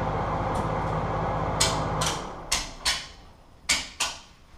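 Circuit breakers being snapped off one after another in an electrical panel: a row of sharp clicks, about five in under three seconds. A steady low electrical hum cuts off about two seconds in as the power goes off.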